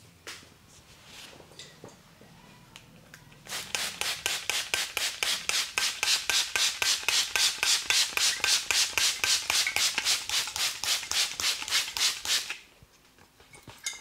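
Massage percussion: a barber's hands striking the client's body in a fast, even rhythm, about four or five sharp strikes a second. It starts about three and a half seconds in, runs for about nine seconds and stops suddenly, after some quiet rubbing.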